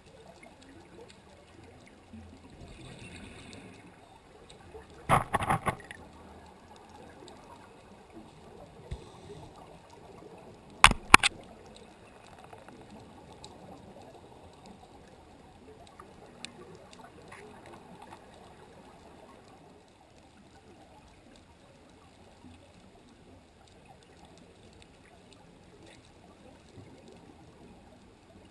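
Underwater ambience picked up by a camera sitting on the seabed: a steady low rushing hiss, broken by a short cluster of loud knocks about five seconds in and two sharp clicks close together about eleven seconds in.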